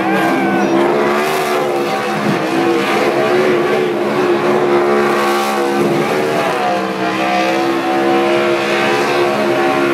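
NASCAR stock car V8 engines revving high through burnouts, tires spinning and smoking on the pavement. The engine note holds steady, then dips briefly about two seconds in and again around six seconds in.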